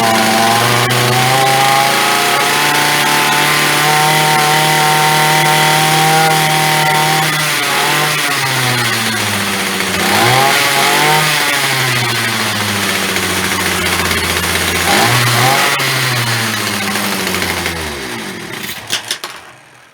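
Titan multi-tool's small two-stroke petrol engine running at a steady speed, then dipping and rising in speed several times before it dies away near the end. It is running on petrol mixed with too much oil.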